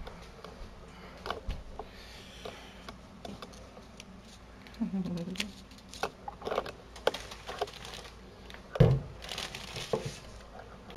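Paper and plastic rustling and crinkling, with small scattered clicks and knocks from things being handled, and one louder knock near the end.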